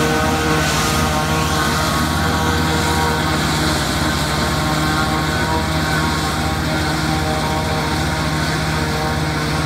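Case 770 tractor's engine running steadily under load, powering a pull-type New Holland 717 forage harvester as it chops standing corn for silage and blows it into a wagon. The chopper's rushing mechanical noise mixes with the engine's drone.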